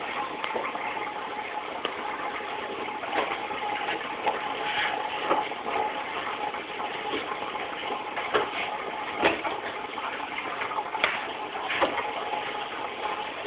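Aquarium filter running in a turtle tank: a steady rush of water splashing and gurgling over a faint steady hum, with scattered small clicks and splashes.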